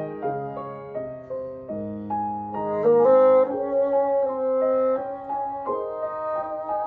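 Clarinet, bassoon and piano trio playing: flowing piano figures under sustained wind-instrument notes, with one long held note in the middle.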